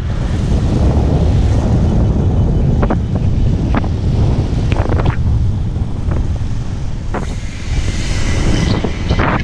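Wind buffeting the microphone of an action camera on a moving motorcycle, with the bike's engine and road noise underneath, and a few short knocks. A brighter hiss comes in about seven seconds in.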